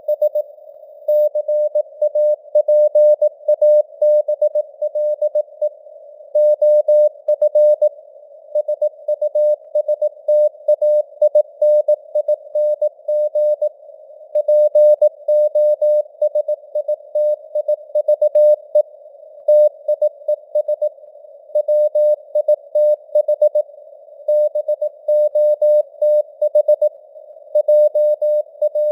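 Morse code (CW) at 18 words per minute: a single steady-pitched tone keyed on and off in dots and dashes, spelling out news headlines. Under it runs a hiss of simulated radio band noise.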